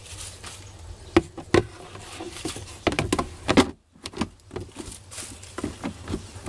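Sharp hard-plastic knocks and clatter as the plastic cover of a Hitachi automatic water pump is handled and set over the pump: two knocks about a second in, a cluster around three seconds, then lighter clicks.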